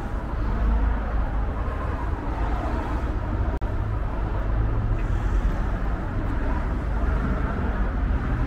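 City street ambience with a steady low rumble of traffic. The sound cuts out for an instant about three and a half seconds in.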